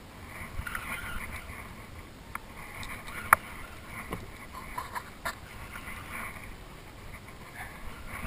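Water and wind noise around a small fishing skiff, with scattered clicks and one sharp knock a little over three seconds in.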